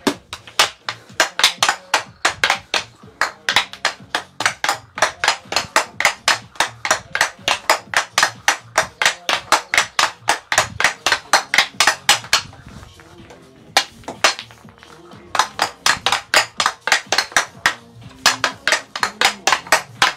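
Rapid stickhandling: an ice hockey stick blade clacking a puck back and forth on a plastic dryland board, about five taps a second. The tapping breaks off for a few seconds about two-thirds of the way through, with one lone tap in the gap, then starts again.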